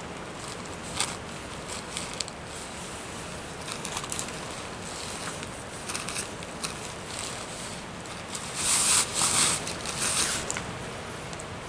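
Steady rain pattern under crisp rustling and crinkling of a nylon dry bag and rain poncho as they are handled, the rustling loudest in a burst about nine seconds in.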